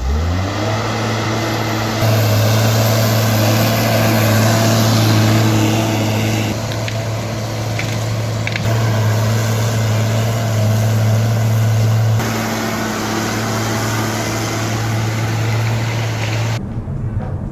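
Large diesel engine running steadily under load, a strong low hum that climbs in pitch as it revs up at the start and then holds, shifting abruptly in level a few times.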